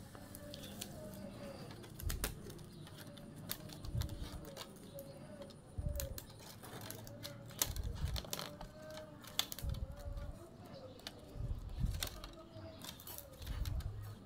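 Scattered light clicks and taps of thin bamboo strips being worked into a woven basket, with soft knocks. Behind them a dove coos in short repeated phrases every couple of seconds.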